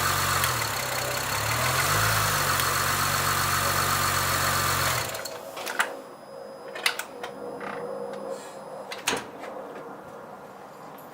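Honda Accord 3.0-litre V6 idling; its speed dips briefly and picks back up a second or two in, then the engine shuts off about five seconds in. A few faint clicks follow.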